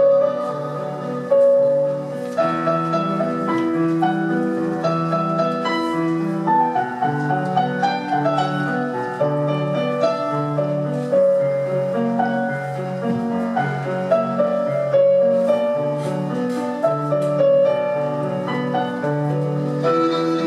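Instrumental classical-style music led by piano, a continuous sequence of held and changing notes with no singing.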